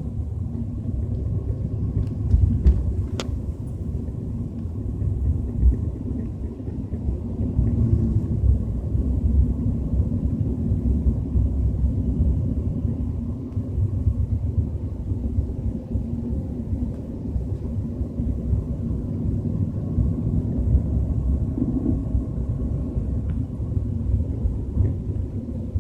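Low rumbling inside the cabin of a moving BMW 320i, heard under steady road and engine noise. It is the unexplained rumble the owner hears at 30 to 40 km/h. There is one sharp click about 3 seconds in.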